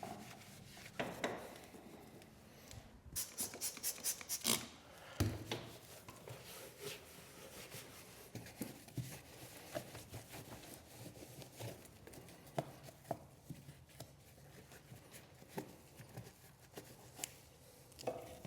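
A cloth wiping and rubbing over a John Deere X360 mower deck in short strokes, with scattered light knocks and clicks; a quick run of strokes comes a few seconds in.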